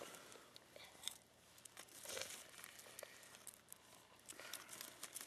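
Faint crinkling and rustling of a hot chocolate mix packet while the powder is spooned into plastic camp mugs, with scattered small clicks.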